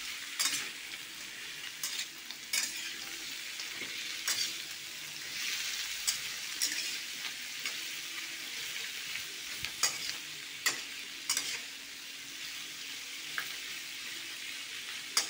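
Tofu and fish stir-frying in a wok with a steady sizzle, while a slotted metal spatula scrapes and knocks against the pan in sharp, irregular clacks as the food is turned.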